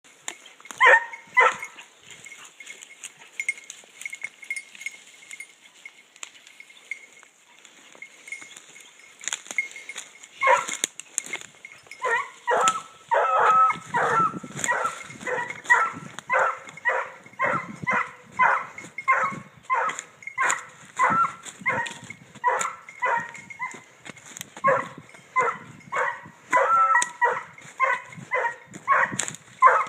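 A leashed scent hound giving tongue as it works the trail of a sounder of wild boar: a few bays near the start, then from about twelve seconds in a steady run of short bays, roughly two a second.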